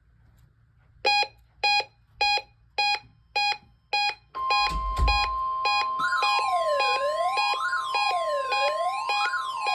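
Weather radio alerting to a NOAA Weather Radio test: six short beeps starting about a second in, then the steady 1050 Hz alert tone, joined about six seconds in by a wailing siren that rises and falls about every second and a half. A low thump about five seconds in.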